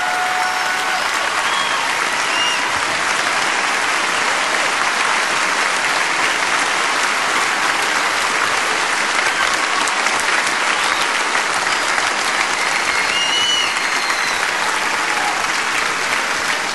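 A large audience applauding steadily, with a few scattered whistles.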